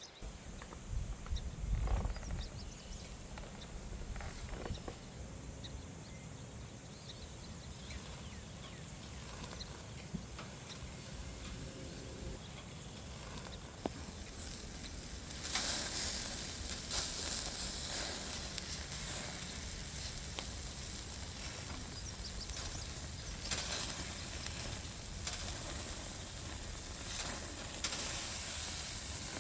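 Hamburger patties sizzling on a grill over a campfire: a steady hiss with small crackles that gets louder about halfway through.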